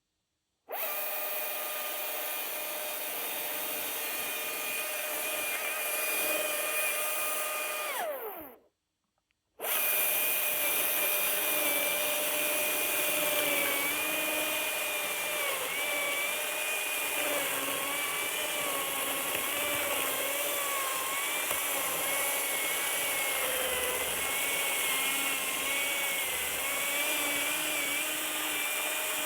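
Husqvarna 540i XP battery-electric chainsaw running: a steady motor-and-chain whine that winds down in pitch and stops about 8 seconds in. About a second later it starts again and runs on, its pitch dipping repeatedly as the chain loads up cutting wood.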